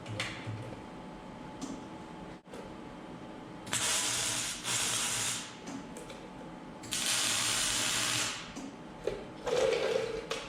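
Electric arc welder striking two tack welds, each a steady hiss and crackle of about a second and a half, the second starting about two seconds after the first ends: tacking a new pin sleeve into a loader boom on each side.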